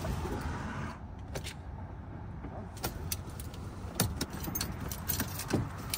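Keys rattling at the ignition and a few sharp clicks as a diesel Mercedes Sprinter van is tried again after a battery boost, with no engine cranking. It gives just a click and nothing more, which the owner and the tow operator take for a failed starter. A steady hiss cuts off about a second in.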